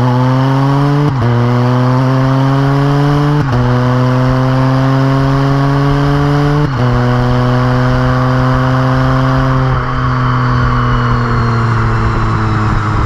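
Can-Am Spyder RT Limited's Rotax 1330 three-cylinder engine heard through an RLS Exhaust Crusher series muffler, accelerating on the road and shifting up three times, about one, three and a half and nearly seven seconds in. From about ten seconds in the engine note slowly falls as the rider eases off the throttle.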